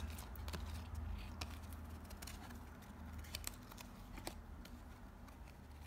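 1993–94 Upper Deck basketball cards being fanned and flipped through by hand: irregular light clicks and snaps of card stock sliding past and off each other, several a second.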